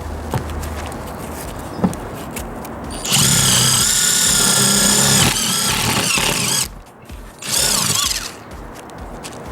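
Handheld power tool cutting into a carpeted boat deck, its motor whining for about three and a half seconds, then again in a shorter burst near the end.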